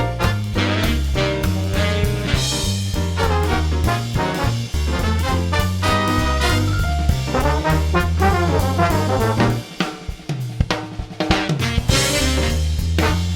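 Upbeat swing-style background music with a walking bass, drum kit and brass; the bass drops out briefly about ten seconds in, then returns.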